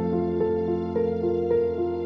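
Background music: calm melodic notes changing about every half second over a held low chord.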